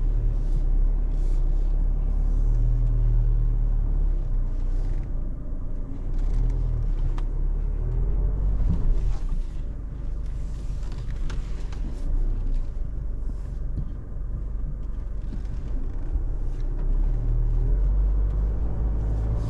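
Isuzu D-Max's 3.0-litre four-cylinder turbo-diesel pulling at low speed over rough off-road ground, with a constant deep rumble and revs that rise and fall. A few short knocks and clicks come through now and then.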